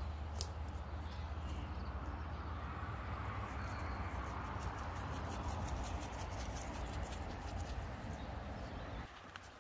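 Wind buffeting the microphone: a steady low rumble with a broad hiss that cuts off suddenly near the end. In the middle, a run of quick faint rattles comes from a seasoning shaker being shaken over a bowl.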